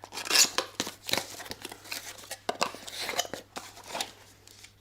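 A cardboard box of brake pads being opened by hand: tearing and rustling of the packaging with scattered clicks and scrapes, busiest about half a second in and dying away toward the end.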